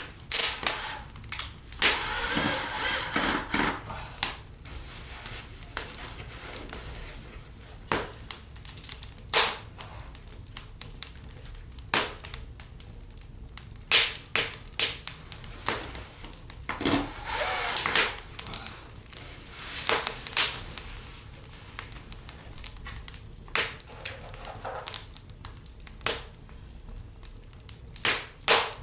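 Hand work with tools and building materials: scattered sharp knocks and clicks, with two longer rough scraping or rustling stretches, one a couple of seconds in and one a little past the middle.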